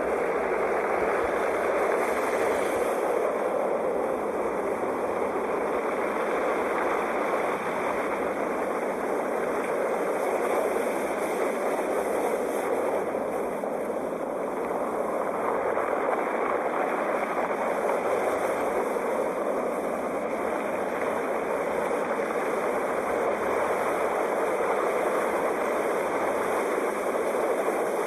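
Sea waves: a steady, dense wash of surf with only slight swells in loudness.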